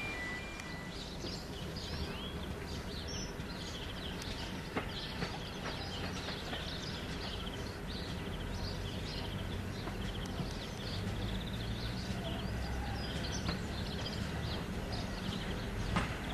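Small birds chirping and trilling repeatedly over a low, steady rumble; the rumble grows a little louder about two-thirds of the way through.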